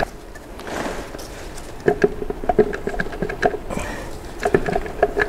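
Torque converter being turned and pushed by hand on an automatic transmission's input shaft: repeated metallic clinks, each with a short ring, and a stretch of scraping. Its drive tangs are hunting for the notches of the transmission's front oil pump before it drops into its last stage.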